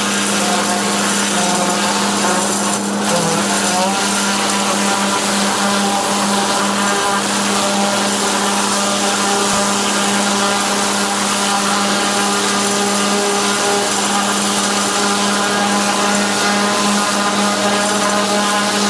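Hydro excavator working: a steady machine drone with a strong low hum from the vacuum system and truck, over a continuous hiss as the high-pressure water lance cuts the soil and the vacuum tube sucks up the loosened slurry.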